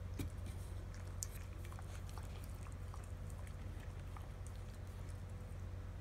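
Dog lapping milk from a bowl: quick, irregular wet tongue clicks, several a second, over a steady low hum.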